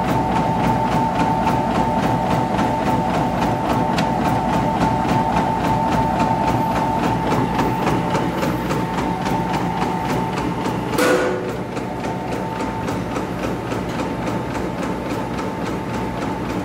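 Yamato noodle-making machine running as it cuts dough into noodles: a steady mechanical hum with a high whine and a fast, even clatter. A single knock about eleven seconds in.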